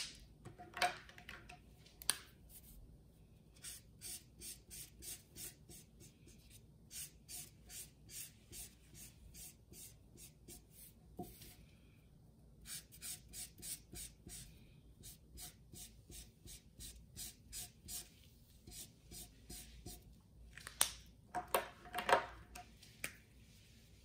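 Felt-tip marker scribbling back and forth on a folded paper towel, a steady run of soft strokes about two to three a second. A few louder knocks come near the end.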